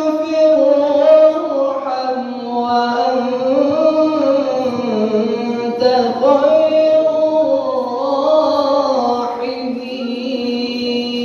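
A young man's voice chanting Quran recitation in long, drawn-out melodic phrases that waver and hold on sustained notes.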